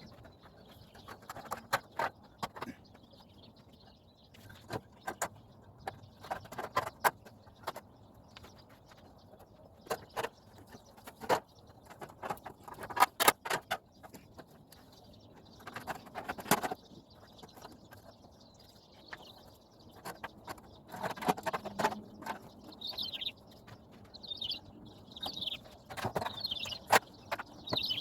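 Irregular knocks, clicks and rattles from handling swamp cooler parts, coming in short clusters. In the last few seconds a bird chirps short calls about once a second.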